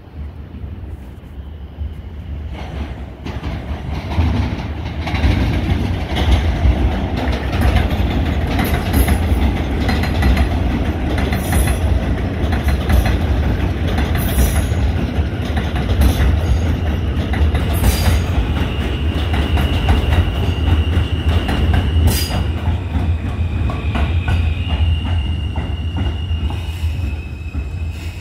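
New York City subway train running past on the elevated track, its rumble building over the first few seconds and then holding loud. Wheels click over rail joints throughout. In the second half, thin high wheel squeals come and go.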